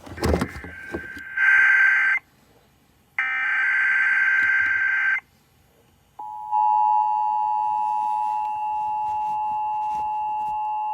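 Emergency Alert System tones: a short thump at the start, then two bursts of the SAME header's screeching digital data, and about six seconds in the steady two-tone attention signal begins and holds.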